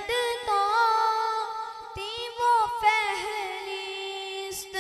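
A boy's voice singing a naat into a microphone, drawing out long held notes with wavering ornaments between the words of the verse.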